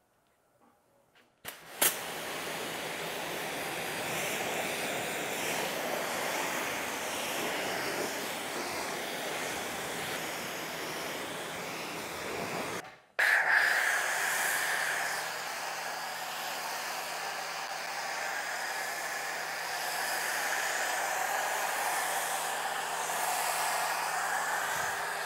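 Kränzle K1322TS pressure washer spraying water onto a car with a steady hiss, starting about a second and a half in. After a brief cut near the middle, the spray resumes through a foam cannon laying foam on the car, with a faint steady hum underneath.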